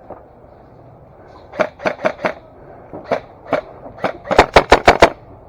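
Airsoft rifle shots as sharp pops in short strings. There are four quick shots about a second and a half in and two single shots around three seconds. The loudest is a rapid string of about six shots near the end.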